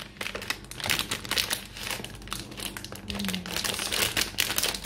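Clear plastic wrapping crinkling continuously in dense, irregular crackles as a wrapped portable speaker is handled and slid out of its cardboard sleeve.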